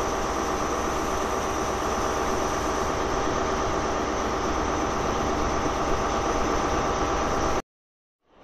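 Class 43 HST power car's MTU diesel engine idling, a steady drone with a high whine over it. It cuts off suddenly near the end.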